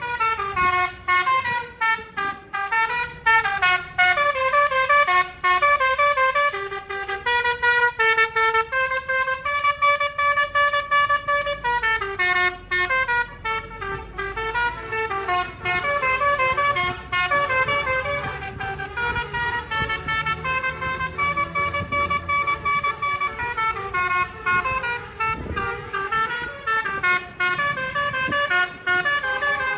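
Bus's multi-tone 'telolet basuri' musical horn playing a melody, stepping through quick and held notes without a break, with a low rumble underneath.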